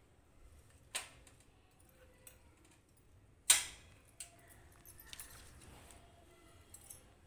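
Light clinks and knocks of stainless-steel bowls and plates on a thali being handled, with one sharp ringing clink about three and a half seconds in and a smaller one about a second in.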